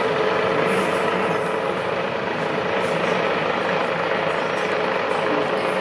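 Rescue helicopter hovering low over a river, with steady turbine and rotor noise. Its rotor downwash is whipping up spray on the water below.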